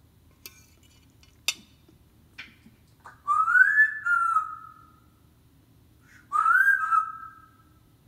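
Congo African grey parrot whistling twice, each whistle about a second and a half long, rising in pitch, then holding and dropping. A few sharp clicks come before the first whistle.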